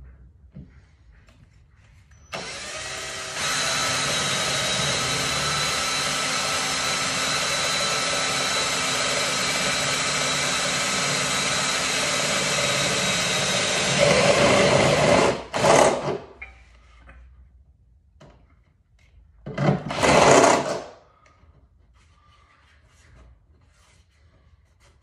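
Cordless drill running steadily for about twelve seconds as it bores into the car's sheet-metal body. The sound deepens and grows louder near the end of the run. Two short bursts of the drill follow a few seconds apart.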